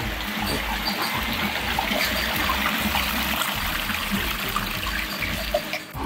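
Steady trickle of running water from a small tub washing machine as it drains or fills.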